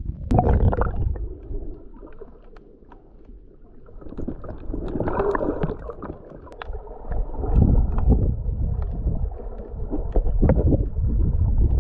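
Water splashing and sloshing around a person swimming beside a small boat, with gurgling. It comes in several loud surges.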